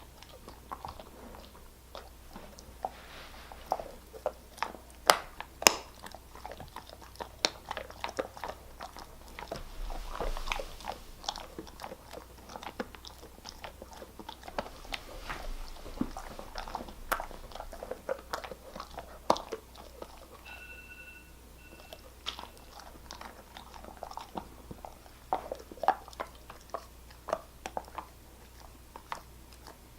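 German Shepherd chewing and crunching a hard treat, with irregular crunches and bites throughout. A short steady beep sounds about two-thirds of the way through.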